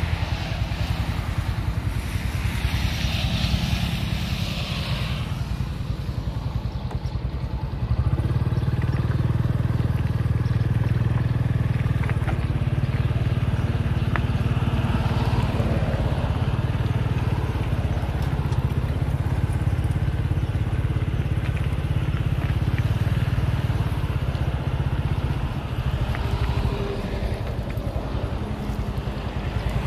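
Road traffic on a highway: engines of passing trucks, cars and motorcycles running as a steady low rumble that grows louder about eight seconds in.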